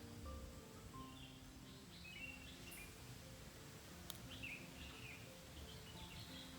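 Faint forest birdsong: short chirps and falling whistles, busiest in the middle, over quiet background music with held notes. A single sharp click about four seconds in.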